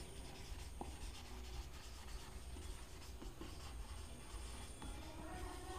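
Marker pen writing on a whiteboard: faint, irregular strokes and rubs as words are written.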